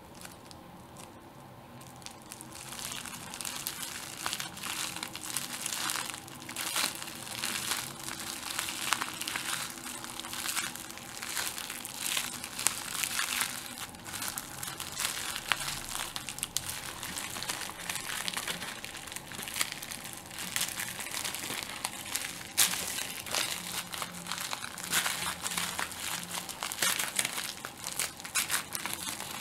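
Plastic bubble wrap being squeezed and popped by hand: a fast, irregular run of sharp little pops mixed with the crinkling of the plastic. It starts about two seconds in.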